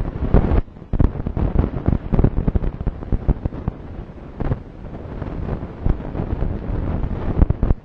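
Wind buffeting the microphone: a loud, dense run of irregular pops and low rumbles that eases off right at the end.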